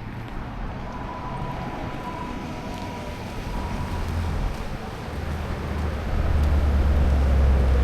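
A motor vehicle going by on the street: a low rumble that builds and is loudest near the end.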